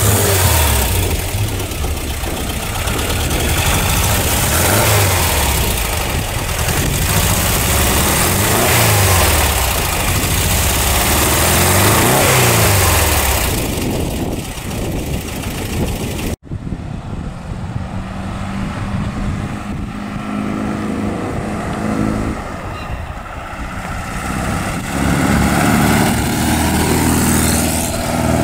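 1974 Volkswagen Type 2 Weekender's air-cooled flat-four engine running with the rear engine lid open, revved up and let back down several times. About halfway through the sound cuts to the van's engine as it drives off, pulling away near the end.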